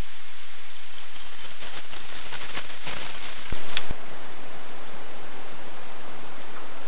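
Loud, steady static-like hiss, crackling with scattered clicks for about the first four seconds, then an even hiss.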